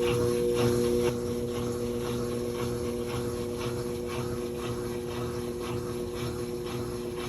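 GE top-load washer running after its lid lock was fixed, expected to be draining and spinning: a steady motor hum made of several tones, the highest of which drops out about a second in, over a faint swish repeating about two to three times a second.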